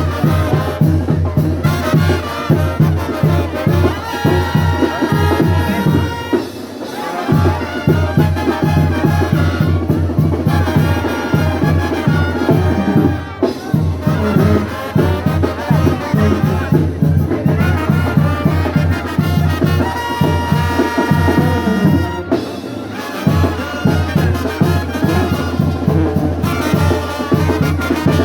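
Brass band music, trumpets and trombones over a steady bass beat, with brief lulls about six and twenty-two seconds in.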